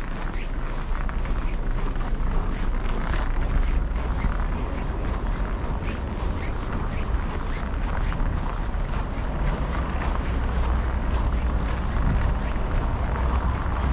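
Steady city street noise in a snowstorm: traffic passing, with a low rumble of wind on the microphone.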